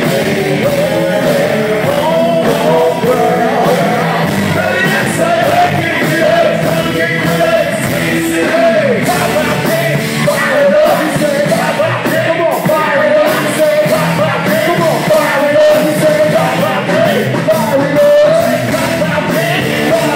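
A live band playing a loud, rock-flavoured hip-hop song through the PA, with a voice singing over it.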